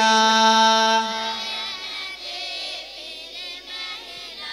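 A sung Sinhala Buddhist blessing verse (seth kavi): one long held note fades away about a second in. Quieter voices of the gathered devotees then sing along.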